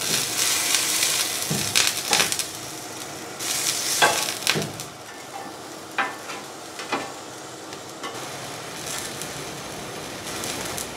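Green onions and sweet peppers sizzling on a hot stovetop grill pan, with several sharp clicks of metal tongs and a spatula against the pan as the vegetables are turned. The sizzle is loudest in the first couple of seconds and again about four seconds in, then settles lower.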